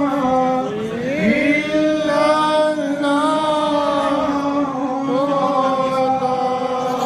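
Male voice chanting a devotional recitation in long, drawn-out held notes that slide slowly from one pitch to the next.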